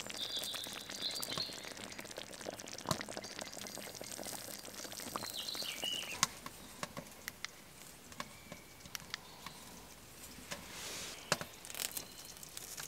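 Tomato stew simmering in a cast-iron skillet on a wood stove, quietly sizzling and bubbling with many small irregular pops.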